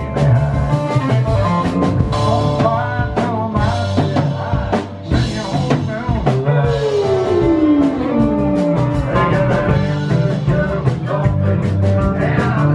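Country band playing live with pedal steel guitar, electric guitar, upright bass and drum kit, to a steady beat. About six seconds in, a long slide falls in pitch over roughly two seconds, from the pedal steel.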